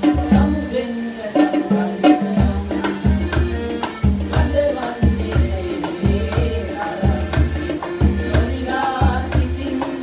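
Small acoustic band playing a Sinhala folk-pop song: piano accordion carrying the melody and bass notes over bongos, a hand drum and a shaker keeping a steady beat.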